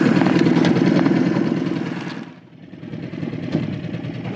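Small outboard motor on an inflatable boat, running steadily at cruising speed. It drops away sharply about halfway through and comes back quieter.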